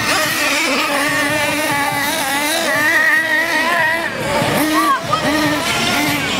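Several radio-controlled model cars racing, their motors whining at high pitch and revving up and down as they accelerate and brake around the track, several at once and overlapping.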